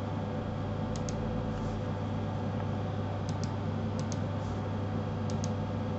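Computer keyboard keys clicking: four quick pairs of clicks spread through the stretch, over a steady low electrical hum.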